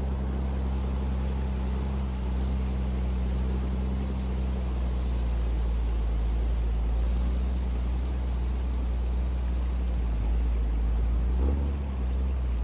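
Unimog camper truck's diesel engine running steadily at low revs as it wades through a glacial river, over the even hiss of the rushing water. About a second before the end the engine note briefly changes.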